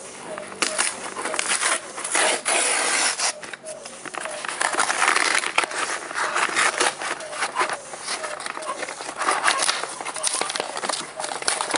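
Brown paper mailer package rustling and crinkling as it is handled and lifted, with many quick crackles that swell and fade unevenly.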